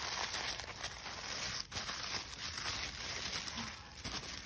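Tissue paper rustling and crinkling as hands unfold it, with a brief lull less than halfway through.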